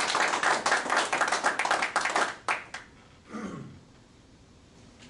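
A small audience clapping, thinning to a few last claps and stopping a little under three seconds in.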